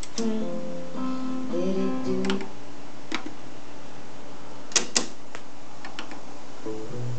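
Acoustic guitar music played back from cassette on a Dual C-844 tape deck. Two sharp clicks come close together about five seconds in.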